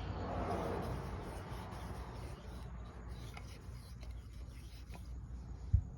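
Fingers rubbing engine oil around a piston and its rings, a soft rubbing that is strongest in the first second or so and then fades. A single dull knock comes near the end.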